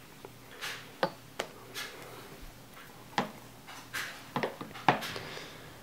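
A handful of sharp clicks and knocks, about five, with soft rustling between them: something being handled and set down at close range.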